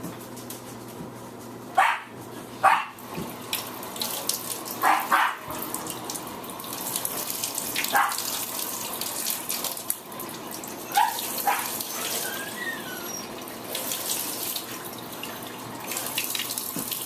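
Water running from a tap, growing stronger about six seconds in, with short sharp dog barks or yelps breaking in every few seconds.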